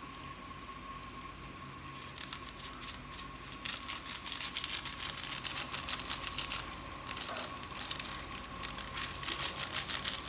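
Noodles crackling and spitting in a hot pan as they are stir-fried, a dense irregular crackle that grows heavier about four seconds in.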